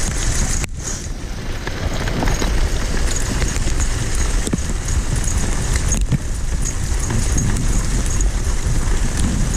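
Two-dog kicksled running along a snowy trail: a steady rumble and hiss from the runners and wind on the microphone, with faint irregular ticks and footfalls.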